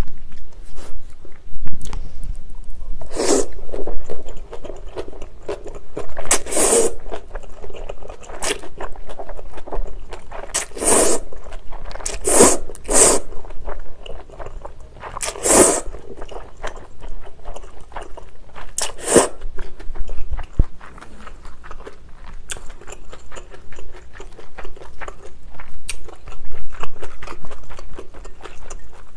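Close-miked eating of chewy spicy cold noodles: several loud slurps, each about half a second, in the first two-thirds, with wet chewing between them and continuing to the end.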